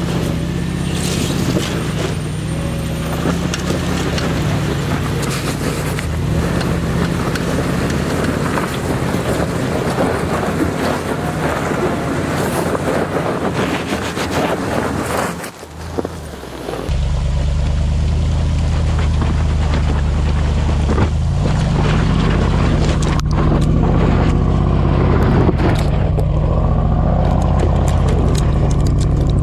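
Range Rover Sport (L494) driving over loose gravel and dirt: a steady engine drone with tyres crunching over stones. After a brief break about halfway through it comes back louder and closer, with stones and grit clicking and clattering against the underside near the end.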